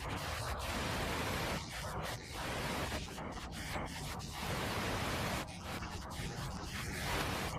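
Steady rushing noise of water, with the level dipping briefly now and then.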